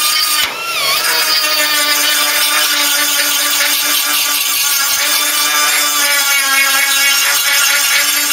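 Power drill drilling out spot welds in a car's steel body panel, the motor whining steadily under load with the grind of the bit cutting metal. About half a second in, the motor briefly slows and picks back up.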